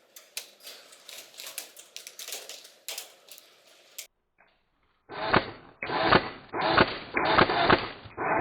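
Airsoft guns firing in rapid, irregular clicking bursts for about four seconds. After a second of silence, a louder, muffled sound comes in uneven pulses with short gaps through the rest.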